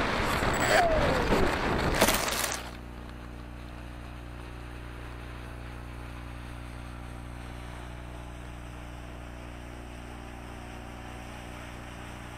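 Onboard camera audio of an electric RC plane: motor and propeller noise with wind rush, the whine falling in pitch about a second in. A sharp knock about two seconds in as the plane comes down in the grass, followed by a steady low electrical hum.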